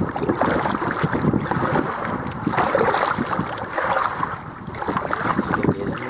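Wind buffeting the microphone in low, irregular rumbles, over water lapping and splashing around a canoe on the river.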